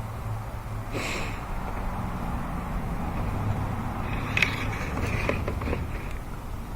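Rotary dryer-vent cleaning brush on screw-together rods working inside the dryer exhaust duct, with a steady low hum and the rods knocking and scraping against the duct: a knock about a second in and a spell of clicks and scrapes partway through.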